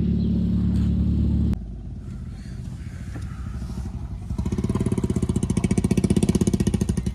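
Steady low engine drone inside a moving car, which cuts off abruptly about a second and a half in. After a quieter stretch, a fast, evenly pulsing engine comes up a little past the middle and keeps running.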